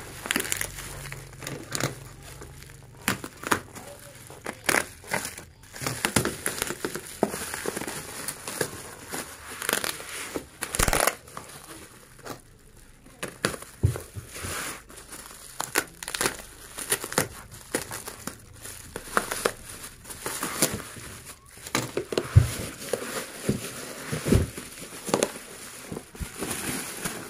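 Bubble wrap being handled and pulled off a box by hand: irregular crinkling and rustling of the plastic, with a couple of soft knocks near the end.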